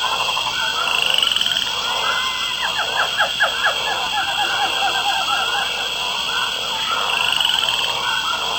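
Chorus of many frogs croaking together over a steady high-pitched buzz, as in a night-time pond ambience sound effect.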